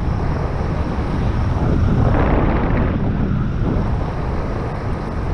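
Wind rushing over the microphone of a camera on a paraglider in flight: a steady, loud buffeting that swells about two seconds in.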